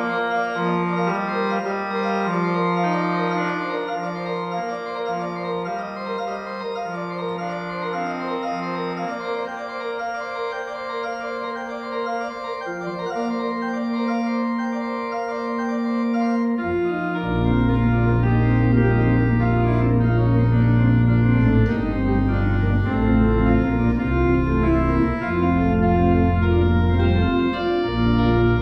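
Organ playing a postlude: held chords over a slowly moving line, and about 17 seconds in deep pedal bass notes come in and the sound grows louder and fuller.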